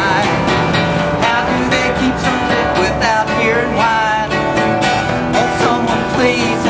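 Acoustic guitar strummed in a country-folk style, with a wavering melody line over it.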